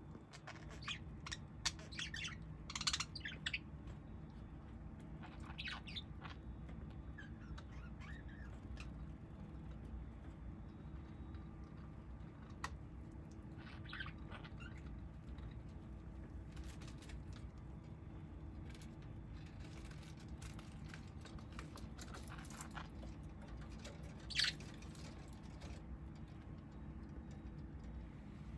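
A small bird chirping in short, scattered calls, several in the first few seconds and a louder one about 24 seconds in, over a steady low hum.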